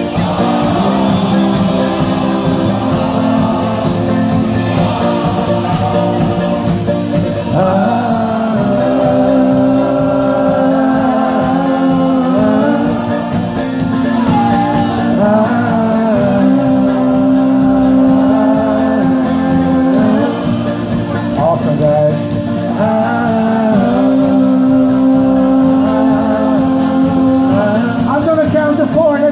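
A live folk-rock band playing with banjo, mandolin, acoustic guitar and upright bass, a lead voice singing over the steady strummed beat, heard through a large hall.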